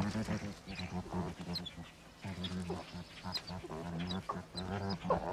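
River otters wrestling and calling: a quick run of short chirps, squeaks and grunts, over a low steady hum.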